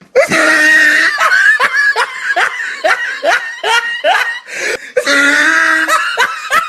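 A meme laugh sound effect: a person laughing hard in a run of short, rhythmic, rising bursts, about two or three a second. The laugh starts over about five seconds in, as if looped.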